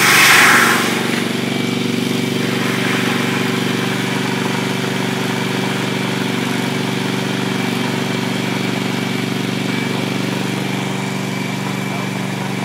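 Portable compressed-air foam system in operation: an engine running steadily under the rushing hiss of foam discharging from a handline nozzle. The hiss is loudest in the first second, then settles.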